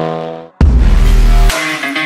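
A car exhaust note fades away in the first half second, then loud electronic music with heavy bass cuts in abruptly.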